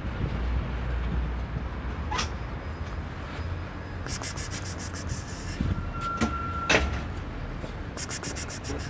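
Wind rumbling on the microphone, with a few sharp clicks and two runs of rapid, high-pitched ticking, about four seconds in and near the end.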